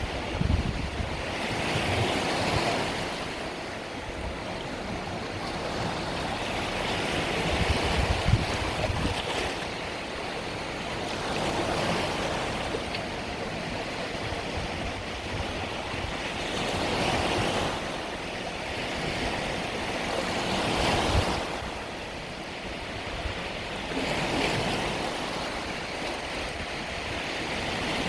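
Mediterranean sea waves breaking and washing up on the beach. The surf swells and falls back about every four to five seconds.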